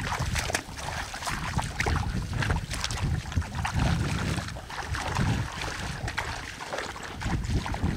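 Feet wading and splashing through shin-deep water, in an uneven rhythm, with wind buffeting the microphone.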